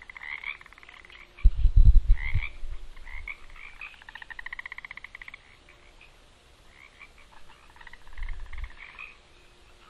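Frogs calling in a chorus of rapid pulsed trills and chirps. Two deep, low thumps stand out, a loud one about one and a half seconds in and a softer one near the end.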